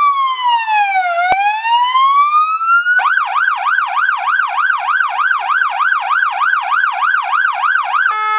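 Renault D14 fire engine's electronic siren sounding. It starts on a slow wail falling and rising, switches about three seconds in to a fast yelp of about three sweeps a second, and changes near the end to a steady two-tone hi-lo.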